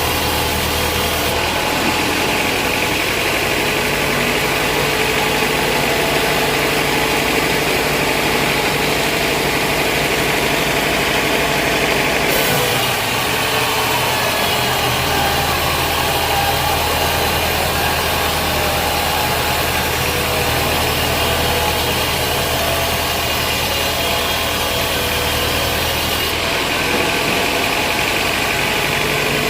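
Large vertical band saw and its drive motor running steadily, a constant loud machine drone with a steady hum. The tone shifts abruptly a few times.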